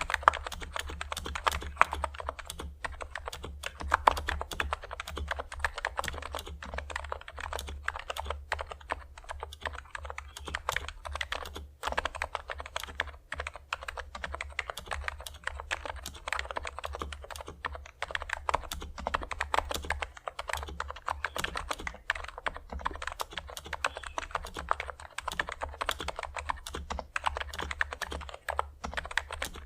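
Continuous fast typing on a NIZ X87 keyboard with 35 g electro-capacitive switches lubed with Krytox 205g0: a dense, even run of key strokes. A steady low hum sits underneath.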